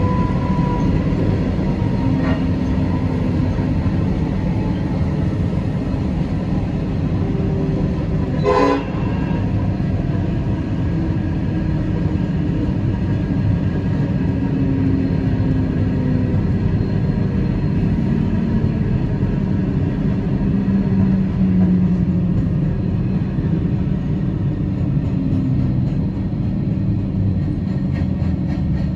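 Diesel freight locomotives, including Railfirst's VL class VL360, passing at close range: a steady heavy engine drone over the rumble of wheels on the rails. There is a sharp metallic clank about nine seconds in.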